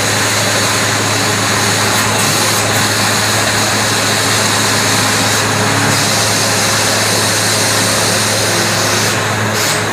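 Borewell drilling rig running steadily: a constant low engine hum under a loud, dense hiss.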